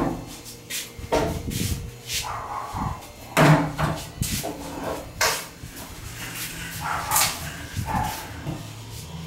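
Irregular knocks and bumps as a long tube is manoeuvred and set down in a small room, with a dog barking now and then.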